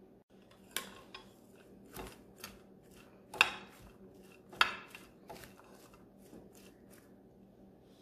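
A plastic spoon stirring chopped lettuce, cucumber, celery and cilantro in a glass baking dish: irregular scrapes and light knocks of the spoon against the glass. The knocks are loudest around the middle and thin out near the end.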